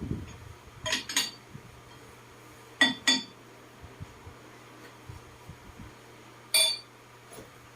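Steel parts or tools clinking against each other with a short metallic ring: a quick pair of strikes about a second in, another pair about three seconds in, and one more near the end.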